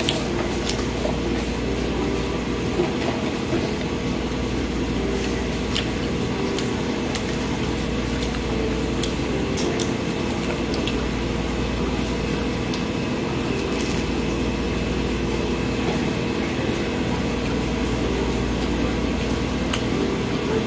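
A steady mechanical hum, like an air conditioner running, with scattered small clicks of someone chewing crisp toasted sandwich bread.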